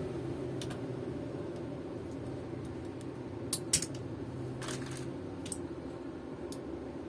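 Scattered light clicks and taps of hand tools and loose parts being handled during steering-column disassembly. The sharpest pair comes about three and a half seconds in, and a short scrape follows about a second later, over a steady low hum.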